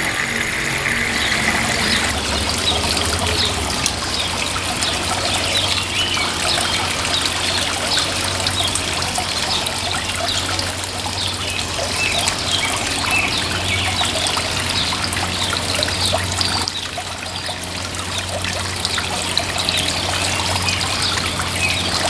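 Water from a concrete garden fountain trickling and splashing steadily over the edge of its top bowl into the basin below, with a steady low hum underneath.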